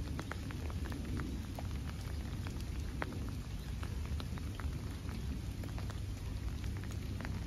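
Rain falling, with many scattered raindrops ticking irregularly close by, over a steady low rumble.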